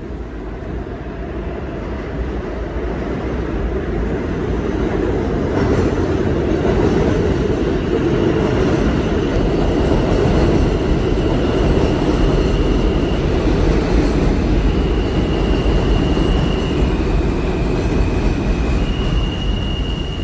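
Elevated train passing overhead on a steel viaduct, recorded by a phone's built-in microphones. The heavy running noise builds over the first several seconds and then holds. In the second half, high-pitched wheel squeals come and go at a few slightly different pitches.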